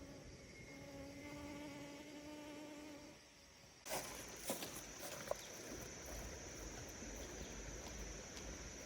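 An insect buzzing in a steady low hum. About four seconds in, the sound changes abruptly to outdoor ambience: a steady high-pitched insect drone, a few sharp clicks and then a low rumble.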